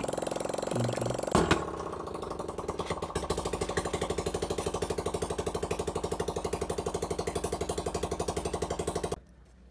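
Honda motorcycle's single-cylinder four-stroke engine idling with an even, rapid exhaust beat, freshly run after a cylinder-head rebuild; a sharp clack sounds about a second and a half in. The engine cuts off suddenly near the end.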